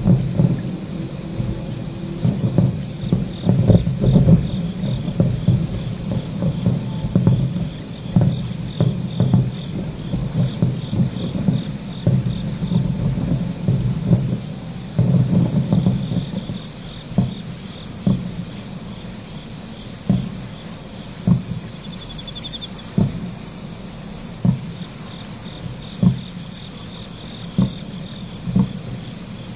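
Distant fireworks booming: a dense rolling rumble of many shells for the first half, then single dull thumps about every second or so. Under them, a steady high insect chirring.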